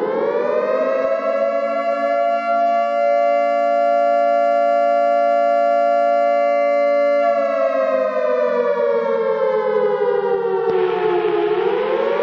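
Air-raid siren sounding two close pitches together: it reaches a steady held note just after the start and holds it for about seven seconds, then slides down over about four seconds and begins to wind up again near the end.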